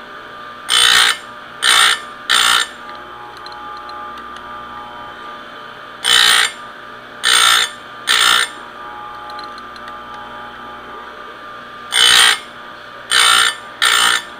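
Electric bench chainsaw-chain sharpener running with a steady motor hum, its grinding wheel brought down on the chain's cutter teeth in short, loud grinds. The grinds come three in quick succession, with a pause of a few seconds between groups while the chain is moved on. A dull chain is being resharpened.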